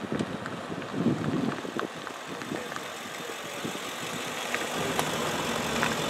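An engine idling steadily, with a few short clicks and knocks over it.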